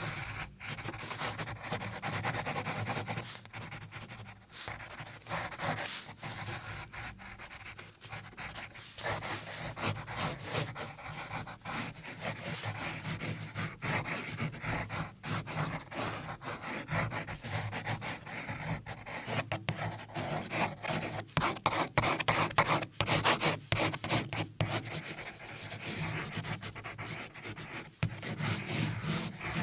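Close-miked ASMR rubbing and scratching on a surface, continuous and uneven, with many small clicks.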